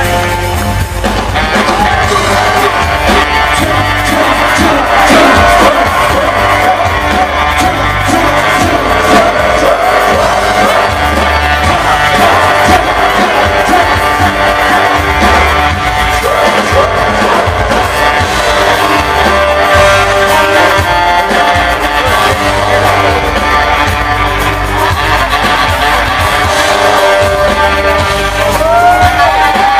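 Live New Orleans funk band playing loud and steady: drum kit, electric bass and electric guitars, with a saxophone playing the lead line over them.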